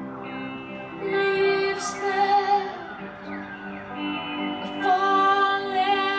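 A woman singing slow, long-held notes live over sparse instrumental backing. Sung phrases begin about a second in and again near four seconds.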